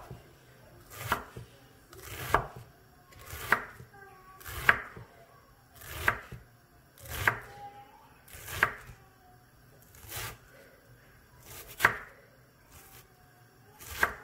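Kitchen knife dicing a red onion on a wooden cutting board: slow, even chops about one a second, each a sharp knock of the blade on the board.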